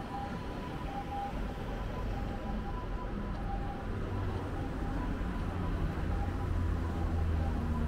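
City street traffic, with a vehicle's low engine rumble growing louder in the second half. A faint two-tone siren at the start fades away.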